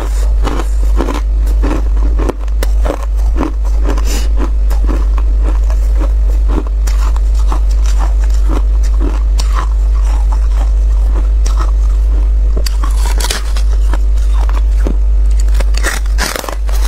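Close-miked chewing of frost-coated freezer ice: a quick run of crunches, several a second, with louder crunching bites near the end as a fresh piece is bitten. A steady low hum runs underneath.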